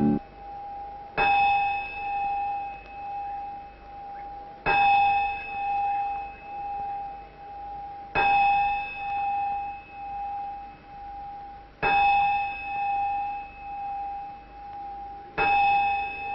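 A bell-like metallic tone struck five times, about every three and a half seconds. Each stroke rings on with a pulsing, wavering hum as it fades.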